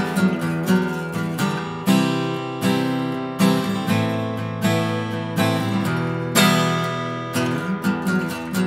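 Acoustic guitar strummed chords in an instrumental passage with no singing, the strums falling roughly once a second with the chords ringing between them.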